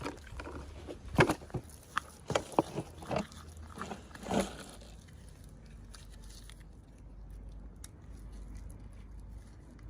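Unboxing of toy miniatures: a run of crisp crinkles and clicks from packaging being handled and opened, busiest in the first half, then quieter handling.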